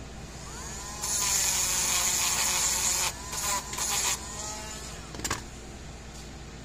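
Small cordless rotary tool spinning up with a rising whine, then grinding against a small plastic-cased part of an electric fence charger in steady and then broken bursts, and winding down. A sharp click comes about five seconds in.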